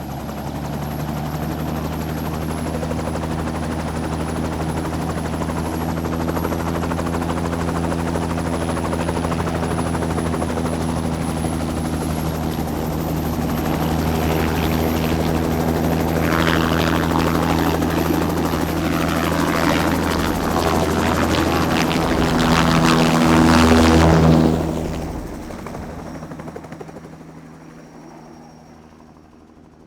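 Helicopter running with a steady engine drone and a thin high turbine whine. It grows louder and rougher, peaks about twenty-four seconds in, then quickly fades away.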